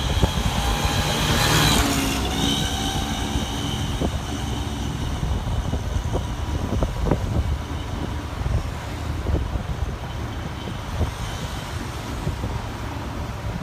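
Road traffic: a large vehicle, a bus, passes close about a second and a half in, with a steady rumble of engines and tyres throughout.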